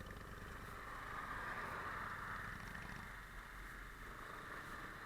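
Motorcycle engine running with a low, fast-pulsing rumble under a steady rush of noise that swells about a second in.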